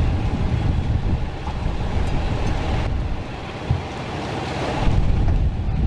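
Steady low rumble under a rushing, wind-like noise, its tone shifting twice partway through.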